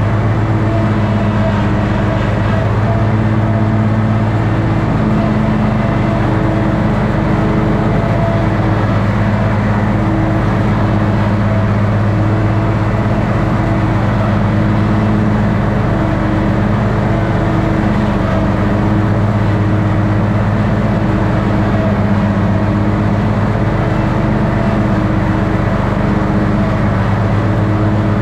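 Toro ride-on mower's engine running loud and steady at a constant speed while mowing, its pitch holding even throughout.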